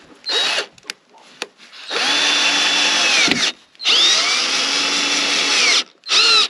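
Maxstar cordless drill-driver driving a screw into an OSB board. The motor gives a short spin, then two long runs of about a second and a half to two seconds each, with a steady whine whose pitch shifts a little under load, and two quick bursts near the end.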